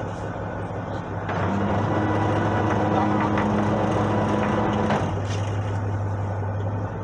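Fishing boat's engine running with a steady low hum; it gets louder about a second in, holds a steady higher note for a few seconds, eases back about five seconds in and drops again near the end, as the throttle is opened and then closed.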